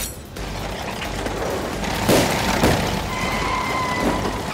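Cartoon action sound effects: a continuous rumble and clatter, with two heavy thuds about two seconds in, roughly half a second apart.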